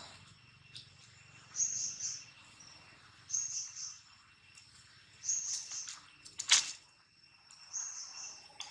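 A bird repeating a short, high chirping phrase about every two seconds over a steady insect drone, with one sharp click about six and a half seconds in.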